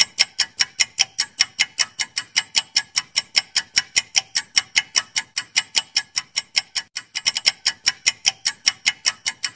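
Clock-like ticking sound effect of a quiz countdown timer: sharp, even ticks at about four to five a second, crowding closer together for a moment about seven seconds in.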